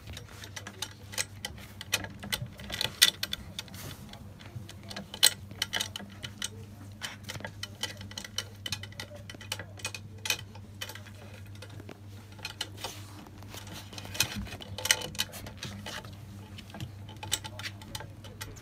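Golden retriever puppies' claws clicking and pattering irregularly as they scamper over blankets and a wooden floor, with a steady low hum underneath.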